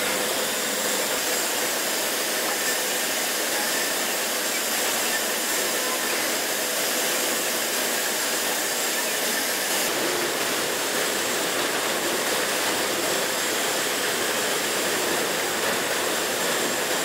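Steady rushing hiss of a servo-hydraulic four-post road-simulator rig running, with no separate knocks or clanks; the tone shifts slightly about ten seconds in.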